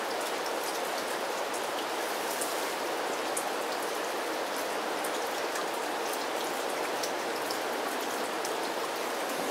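Steady rain falling: an even hiss with scattered drops tapping.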